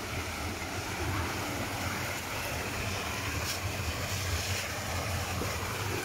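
Steady rushing of a rocky forest creek, with a low rumble of wind on the microphone.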